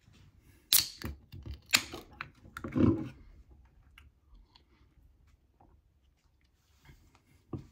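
Tall aluminium can of iced tea being handled: a few sharp clicks and knocks in the first three seconds, then faint sips from the can.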